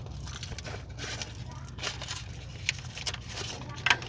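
Silver foil crinkling and rustling as hands wrap it and press it tight around a car's exhaust pipe, with a few sharp clicks, the loudest near the end. A steady low hum runs underneath.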